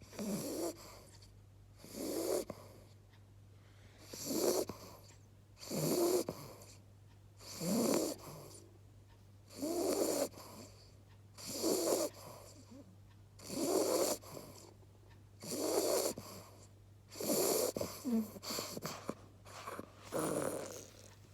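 Beagle puppy snoring in her sleep, a steady rhythm of snores about every two seconds.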